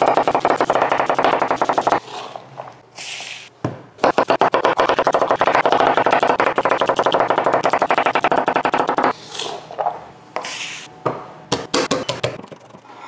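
Chef's knife chopping fast on a wooden butcher-block cutting board, dicing onion and then slicing green bell pepper in rapid runs of strikes, with a pause about two seconds in. Near the end come a few separate knocks as garlic cloves are crushed under the flat of the blade.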